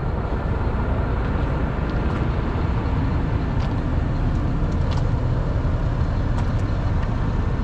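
Concrete mixer truck's diesel engine idling steadily.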